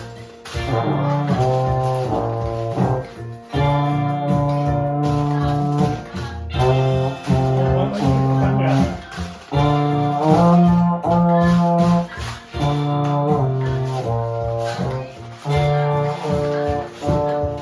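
Euphonium playing a children's-song melody as a string of separate held notes, with a toy Lego maraca shaken along in a quick, steady rhythm.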